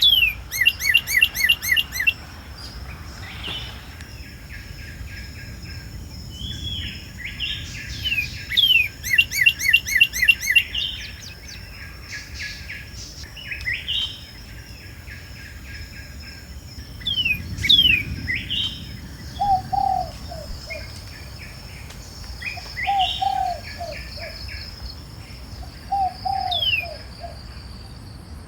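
Several wild birds singing and calling. There are two runs of fast, evenly repeated chirps, several quick downward-sliding whistles, and in the second half a lower short phrase sung three times. A steady thin high tone runs underneath.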